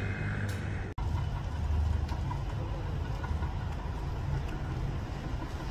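R32 subway train approaching on the tracks: a steady low rumble that swells slightly a second or so after it comes in.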